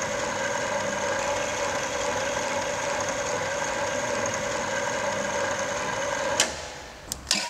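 Follow FTV3 turret milling machine running with its gearbox engaged: a steady mechanical whine made of several held pitches. About six and a half seconds in it stops with a sharp click, and a couple of lighter clicks follow.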